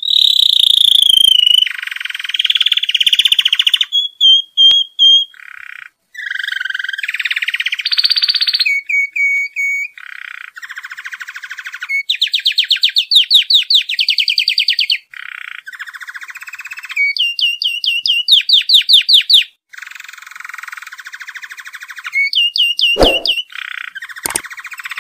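Canary singing a long, varied song of rapid trills and rolls. Each phrase is a fast run of repeated notes, and it switches to a new phrase every second or two with only brief pauses.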